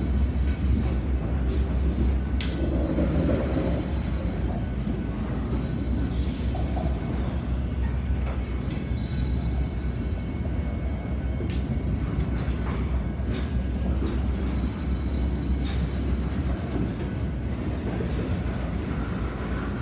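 Freight train of covered hopper cars rolling past: a steady low rumble of steel wheels on rail, with a few sharp knocks, three of them standing out.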